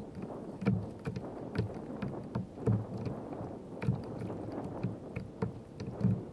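Small waves slapping and knocking against a plastic fishing kayak's hull: irregular short thumps about once or twice a second over light wind noise, played back at three times speed.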